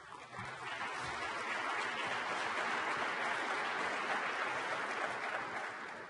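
Audience applauding: the clapping builds up within the first second, holds steady, and fades away near the end.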